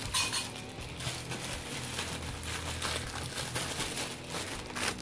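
A metal clink right at the start, typical of a ladle knocking against an aluminium soup pot, then a pot of soup boiling, with dense small crackles and clicks.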